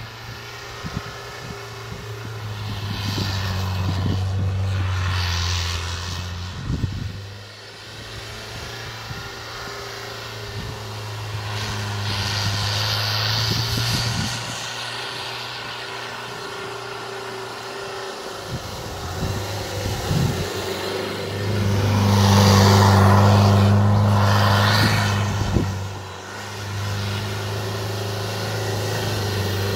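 Mitsubishi Pajero engine running under changing load off-road, its steady low note swelling and easing several times, with bursts of rushing noise over it.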